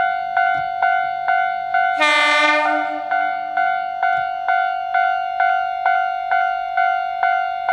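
Level crossing warning bell ringing steadily at about two strikes a second, and a train horn sounding once for about a second, two seconds in.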